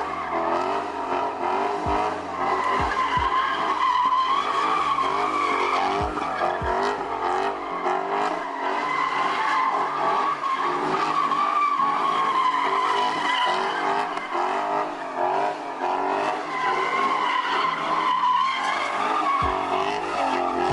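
A car drifting: its tires squeal continuously with a high, wavering tone while the engine revs hard underneath, rising and falling as the driver works the throttle.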